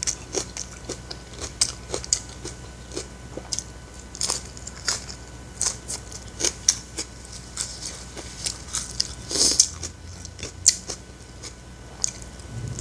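Mouth sounds of a person eating corn fried rice: chewing with a steady run of short, sharp wet smacks and clicks, several a second.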